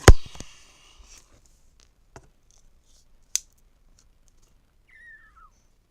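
Metal pocket knife being handled and its blade opened: one loud sharp click at the start, then a few lighter clicks. About five seconds in comes a short squeak falling in pitch, from a computer chair.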